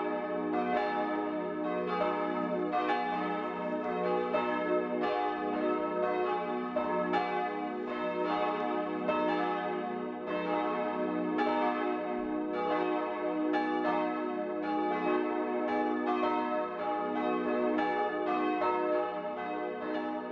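Church bells ringing a continuous peal, strike following strike in an even, overlapping rhythm.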